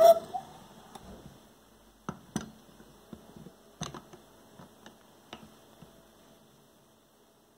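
A stainless steel pitcher clanks against a Cafelat Robot lever espresso machine at the start, followed by a string of light, separate clicks and taps as the machine is handled.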